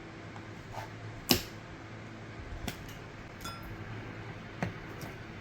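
A chicken's beak knocking on a table: a handful of sharp, irregular taps, the loudest about a second in, over a low steady hum.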